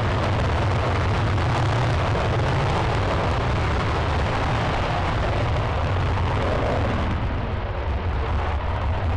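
F-35A's single Pratt & Whitney F135 jet engine in afterburner during takeoff, running at full power as the jet lifts off and climbs away. It is a loud, deep, steady rumble.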